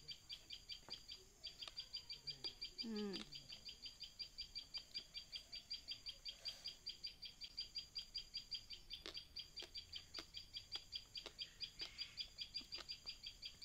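Steady run of high chirps, about five a second, from the surrounding greenery, with a short hummed 'mm' about three seconds in and a few faint clicks as passion fruit pulp is scooped with a spoon.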